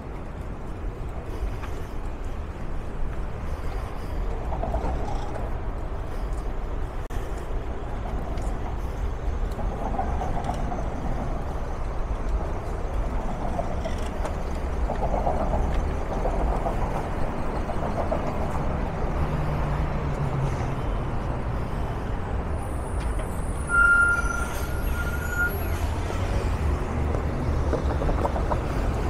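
City street traffic: a steady rumble of passing cars, trucks and buses. A little over three-quarters of the way through, a brief, louder, high-pitched tone rings out for about a second and a half.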